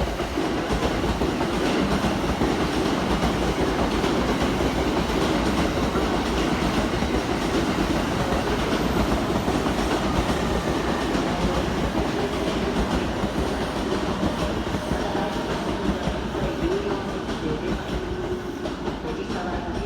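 Electric train running through the station at platform level, wheels clattering over the rail joints, with a steady motor tone coming in near the end.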